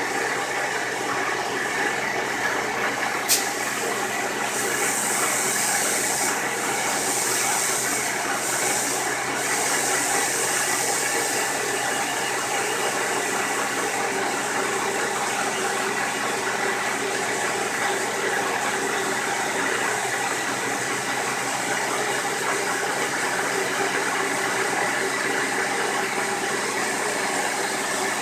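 CNC milling machine running its cutting program: a steady machine drone with several held tones from the spindle and drives. A sharp click about three seconds in, then a high hiss of air-driven coolant mist for several seconds.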